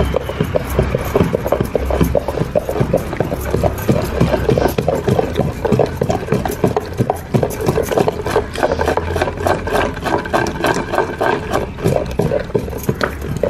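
Rapid, rhythmic knocking and slapping, several strikes a second, from roti and chutney being made by hand.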